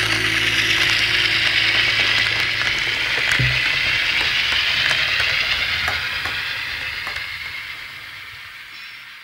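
Model train running past on its track: a steady hiss of wheels on rail with light clicks as they cross rail joints. A low motor hum stops with a knock about three and a half seconds in, and the running sound fades away over the last few seconds as the cars recede.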